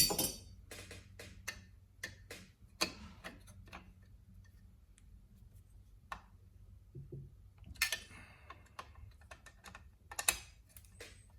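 Irregular light clicks and taps of small steel bolts and a hand tool being handled while bolts are fitted and snugged into a chainsaw muffler cover, with small clusters of clicks about eight and ten seconds in.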